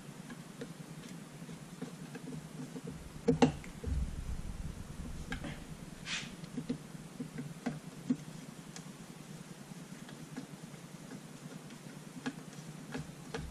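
Screwdriver turning screws back into a chainsaw's top cover: scattered small clicks and ticks, with one sharper knock about three seconds in, over a low steady hum.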